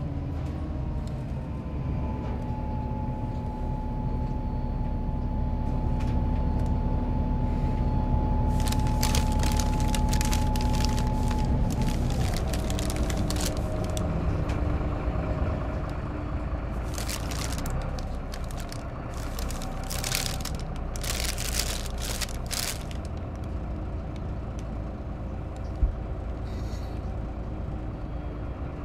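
Cabin sound of a moving city transit vehicle: a steady low drone with a whining tone that drops in pitch about twelve seconds in. Several short hisses come in the middle stretch.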